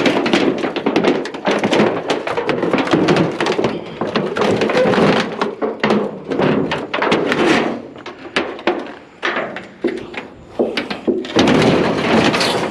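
Thin tin sheet metal clanking and crinkling as it is bent and handled, with a rapid run of knocks and rattles. It eases off a little past the middle and gets louder again near the end.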